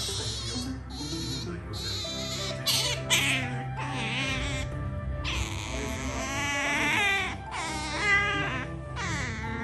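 Asian small-clawed otter giving a run of high-pitched, wavering squeals and whines while being petted by hand, over background music.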